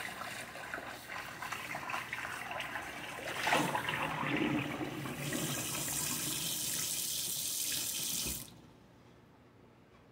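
Kitchen tap running into the sink, water splashing as a greasy soup tureen is washed under it. The flow runs harder about five seconds in and is shut off suddenly a little over eight seconds in.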